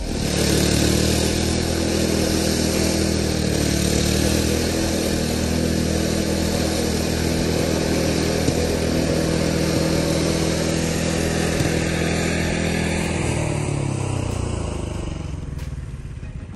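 Gas snowblower engine running steadily; near the end its pitch drops and the sound fades away.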